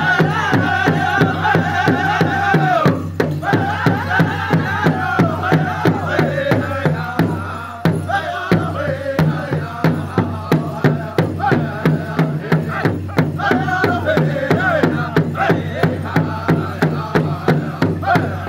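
Powwow drum group: men singing together over a large shared powwow drum beaten in a steady beat, about three strokes a second. The singing breaks off briefly twice while the drum keeps going.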